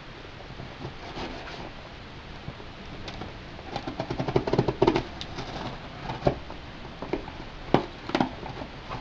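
A knife cutting open a cardboard shipping box, with a rapid run of scratchy rasps about four to five seconds in and a few sharp clicks and knocks of the box being handled later on.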